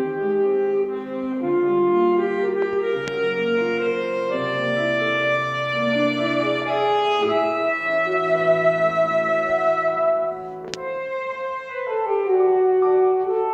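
Alto saxophone playing a melody of long held notes, with grand piano accompaniment. The music eases off briefly near the end, then the saxophone comes back in with a loud held note.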